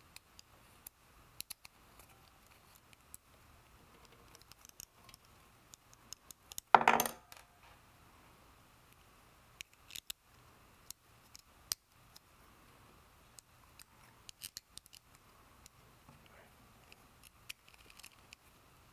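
Small metal assembly parts and a T-handle hex key clicking and ticking as screws are driven into an aluminium channel-slider kit, with one louder clatter about seven seconds in.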